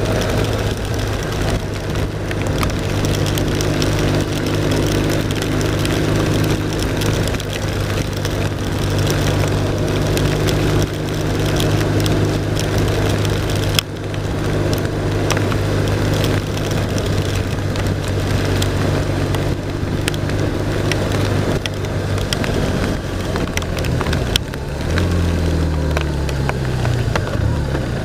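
BMW R1200 RT-P's flat-twin engine running steadily under way, over a constant haze of wind, rain and tyre spray with scattered sharp ticks. In the last few seconds the engine note drops and climbs again as the bike slows and picks up speed.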